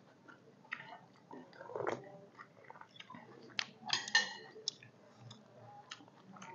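Close-up eating sounds: chewing and biting on pieces of boiled chicken, with short mouth clicks and the odd spoon sip. The loudest moments come about two seconds in and again about four seconds in.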